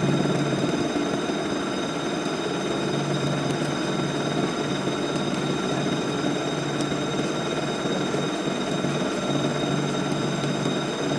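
CNC vertical milling machine running a finishing pass on metal: steady spindle and cutting noise with a constant high whine.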